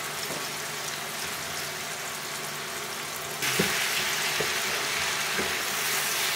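Mushrooms and onions frying in oil in a frying pan, a steady sizzle. About three and a half seconds in, the sizzle grows louder as freshly added chopped green peppers are stirred in with a wooden spoon, with a few light knocks of the spoon against the pan.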